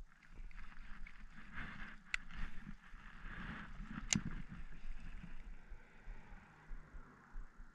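Baitcasting reel being worked by hand: a whir from the spool and gears, with two sharp clicks about two seconds apart. The whir fades about two-thirds of the way through, leaving light ticking.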